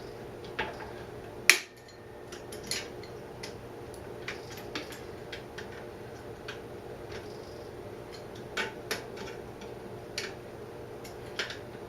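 Scattered sharp metallic clicks and taps of pliers working a broken wire pin out of a motorcycle part, with one louder click about a second and a half in. A steady low hum runs underneath.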